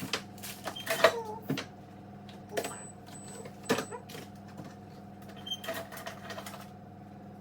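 Clicks, knocks and clatter of plastic food containers and packaging being handled and set down, with a faint steady hum underneath.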